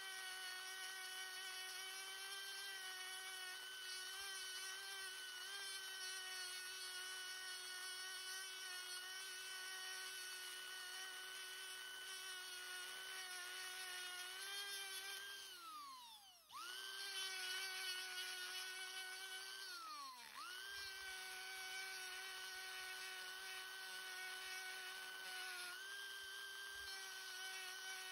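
Old Dremel 370 rotary tool running at a steady high-pitched whine with a small spherical burr carving into a pine knot. Twice, past the middle, it winds down and quickly spins back up. The owner suspects a bearing in it is going out.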